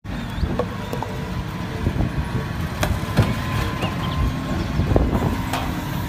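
Engine of a large forklift running under load, with several sharp knocks and clanks as it works at a shipping container.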